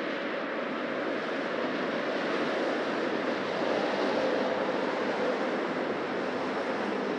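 Steady city street traffic noise: cars passing by on a busy road, the tyre-and-engine rumble swelling slightly about four seconds in as a vehicle goes by and easing off again.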